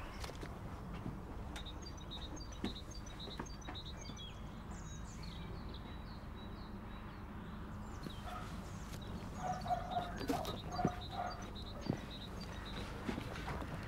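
Small birds chirping in short high notes, in two spells, over a steady low background rumble, with a few short knocks in the last few seconds.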